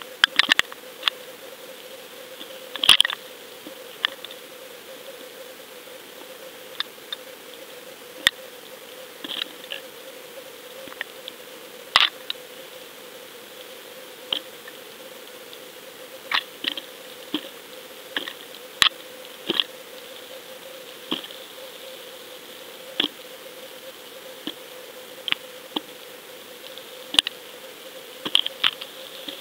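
Underwater recording from a camera hanging on a fishing line: irregular sharp clicks and ticks, roughly one every second or two and some in quick clusters, over a steady low hum.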